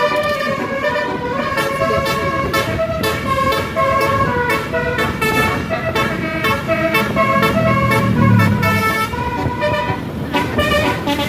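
Basuri telolet musical air horn on a Putera Utama bus playing a fast melody, its notes stepping up and down continuously with a short break near the end. A low engine rumble swells up under it past the middle.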